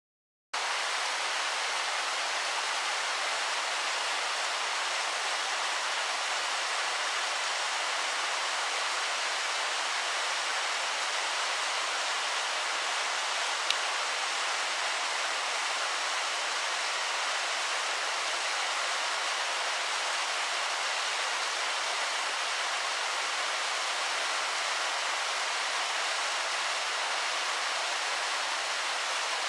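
Waterfall pouring steadily: an even rushing hiss of falling water, weighted toward the upper range, with one faint click near the middle.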